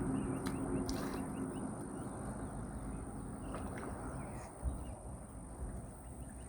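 Rural outdoor ambience: a low rumble with scattered faint bird calls over a steady high whine, and a single knock about four and a half seconds in.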